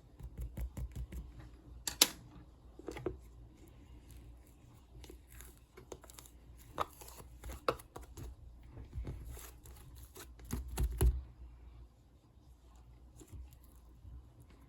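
Close-up handling of paper craft materials: irregular rustling, crinkling and light taps. A few sharper snaps stand out, about two seconds in and again near eleven seconds.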